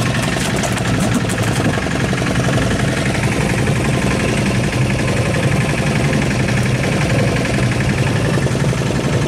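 Fishing boat's engine running steadily with an even, unbroken drone.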